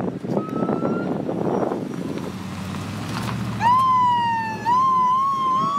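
Police siren starting up about two-thirds of the way in, sweeping up in pitch, dipping and rising again in a wavering wail. Under it run the engines of a motorcycle convoy.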